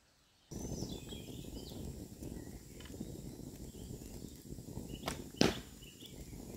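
A longbow being loosed: a faint click about five seconds in, then a loud, sharp snap of the bowstring as the arrow is shot, over a steady rushing noise with a few bird chirps near the start.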